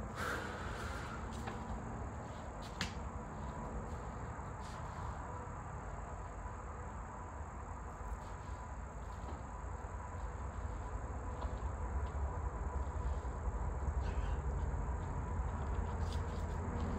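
Steady background noise: a low rumble that grows a little louder over the last few seconds, a constant high-pitched hum, and a few faint clicks.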